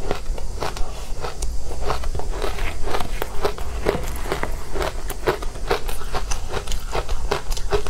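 Close-miked crunching of powdery matcha-dusted ice being bitten and chewed: a rapid, uneven run of crisp crunches, several a second.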